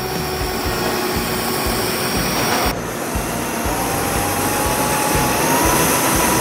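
Cordless drill-driver running as it bores a pilot hole with a wood drill bit into white laminated board. About two and a half seconds in, the sound switches to a countersink bit widening the hole, and the motor whine rises slowly in pitch near the end.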